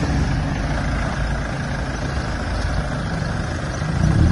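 Mahindra Thar SUV's engine running steadily at low revs as it crawls over a dirt off-road trail, getting a little louder near the end.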